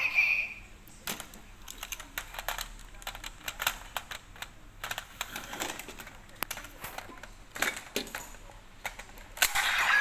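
Irregular plastic clicks and clacks from Kamen Rider Zi-O Ride Watch toys being handled and fitted together, with a louder burst of sound near the end.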